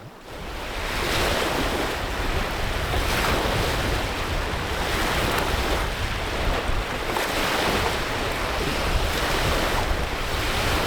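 Storm-driven waves crashing on a lake shore in strong wind, with gusts buffeting the microphone. The noise rises and falls in swells every second or two.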